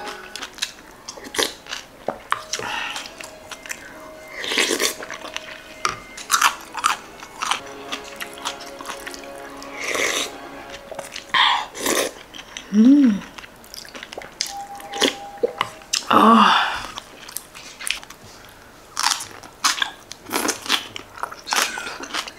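Mukbang eating sounds: a woman slurping spoonfuls of sundae gukbap broth and chewing, with many short sharp smacks and clicks, over soft background music. Twice, about thirteen and sixteen seconds in, a brief pitched sound stands out above the eating.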